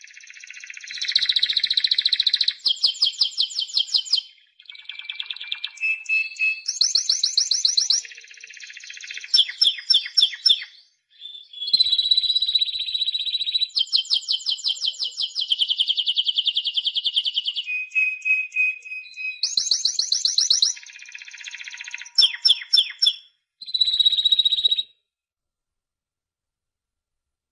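Timbrado canary (Spanish song canary) singing a long, varied song. Rapid rolling trills at several pitches and a few held whistles come in phrases with short pauses between them. The song stops near the end.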